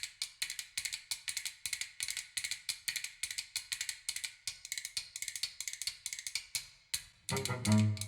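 Recorded music played over Elfton Vegas II loudspeakers: a fast, even pattern of dry, high, clicking percussion, then deep bass notes coming in loudly about seven seconds in.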